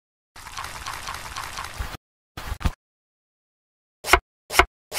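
Edited-in cooking sound effects: about a second and a half of bubbling, liquid noise, then after a silent gap a couple of brief sounds and four short, sharp knocks in quick succession near the end.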